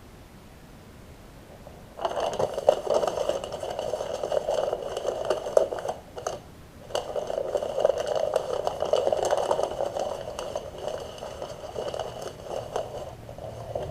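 Packaging being handled and opened: scraping, rustling noise made of many small sharp clicks. It starts about two seconds in and breaks off briefly around the middle.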